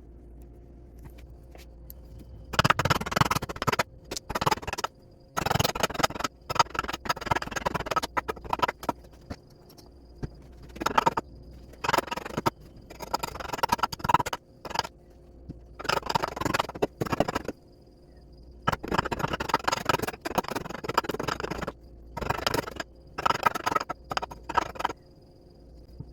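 A hand tool working wood in repeated scraping strokes, coming in bursts of one to two seconds with short pauses between them.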